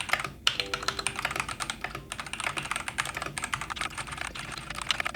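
Fast, continuous typing on a newly assembled Ducky One 3 mechanical keyboard fitted with Gateron G Pro 2.0 White linear switches and PBT double-shot keycaps: a steady stream of key clicks, many strokes a second, during a speed typing test.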